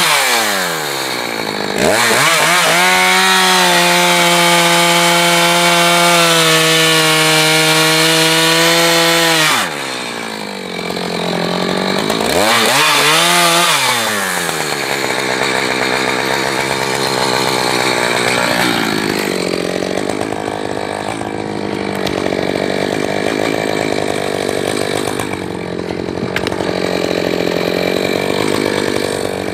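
Echo chainsaw running at high revs, dropping back briefly about half a second in and again near the middle, then revving up each time. For the second half it runs lower and rougher with a dense rasping noise as the chain cuts through firewood.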